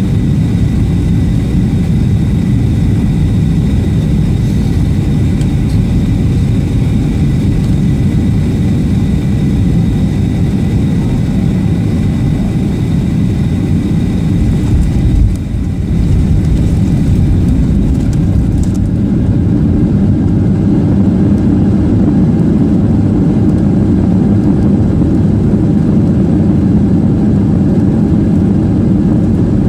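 Cabin noise over the wing of a Boeing 737-800 landing: a steady roar of its CFM56 engines and rushing air with a faint high whine. About halfway through the whine fades and a deeper rumble grows louder as the jet rolls out on the runway.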